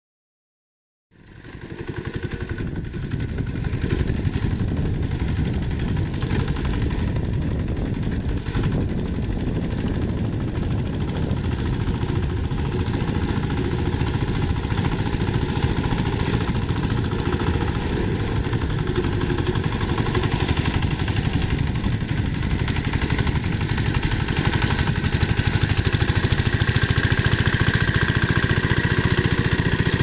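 Two-wheel hand tractor's single-cylinder Kubota diesel engine running steadily with a fast chugging beat while pulling a rake through paddy mud. It starts about a second in and grows slightly louder near the end.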